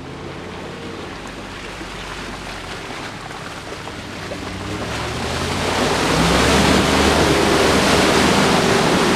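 Off-road SUV driving through a muddy, waterlogged track, its engine running under load while the tyres churn and splash through mud and water. It grows louder as it approaches, is loudest from about six seconds in as it passes close, and stays loud to the end.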